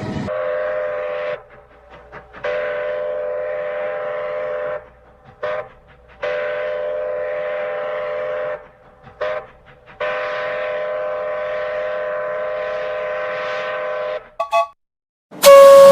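Cartoon train's multi-tone whistle sounding a chord in a series of blasts: a short one, then three long ones of two to four seconds each with quick toots between them, and a few brief toots near the end. A louder, different whistle starts right at the end.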